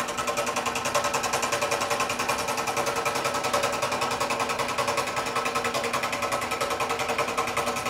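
Wen 16-inch scroll saw running at medium speed, its blade stroking up and down in a fast, steady chatter as it cuts a straight line through 1/2-inch MDF board.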